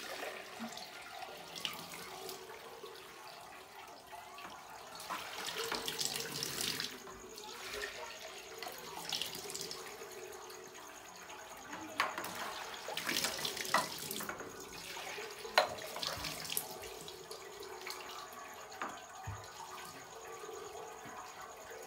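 Milk poured in a steady stream from a plastic bucket into a stainless steel funnel over a steel milk can, pattering and splashing on the metal. A few sharp knocks of metal sound through it, the loudest about two-thirds of the way in.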